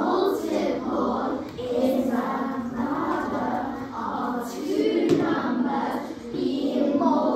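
A class of young children chanting together in unison, many voices in one continuous chorus in phrases of a second or two.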